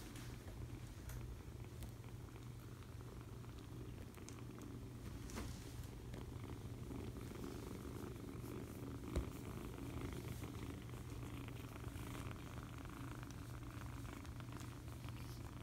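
A young kitten purring steadily while being stroked under the chin, a low continuous rumble. A single soft knock about nine seconds in.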